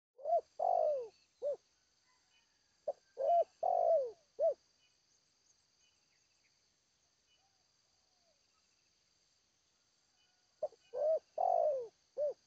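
Spotted dove cooing its song three times, each phrase a few short coos around one longer drawn-out note, the third phrase after a pause of about six seconds. A steady high insect drone runs underneath.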